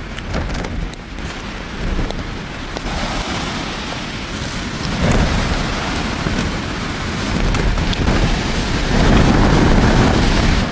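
Strong wind gusting and buffeting the microphone in a storm, with small ticks and rattles; a stronger gust swells near the end.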